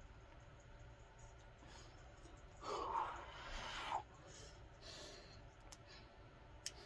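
A man's heavy breath out after a set of dumbbell curls, a noisy rush about a second long, starting a little under three seconds in. A short click near the end.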